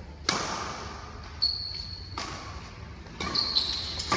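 Badminton rally: three sharp racket strikes on the shuttlecock, each ringing in the hall's echo, with high brief shoe squeaks on the tiled court floor between the hits.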